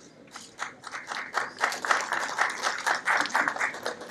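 Audience applauding. Scattered claps start about half a second in and swell into full, dense applause.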